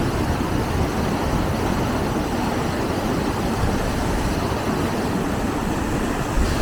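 Waterfall: a steady, unbroken rush of falling water, heavy in the low rumble.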